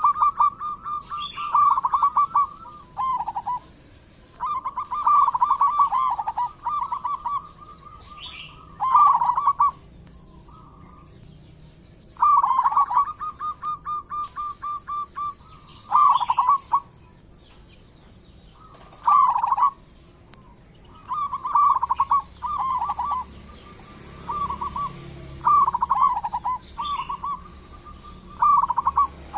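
Zebra dove (local perkutut) cooing: a run of rolling, stuttering coo phrases on about one pitch, each lasting one to a few seconds, with short pauses between them.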